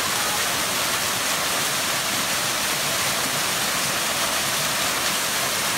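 A cascading waterfall, water pouring steadily down a series of rock ledges in an even rushing noise.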